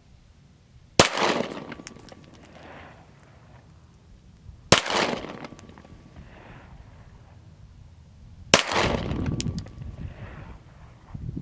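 Three slow, deliberate handgun shots about four seconds apart, each sharp crack followed by an echo that dies away over a second or two.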